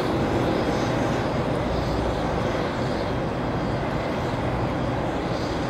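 Steady jet aircraft noise: an unbroken rumble with a hiss above it, holding level throughout.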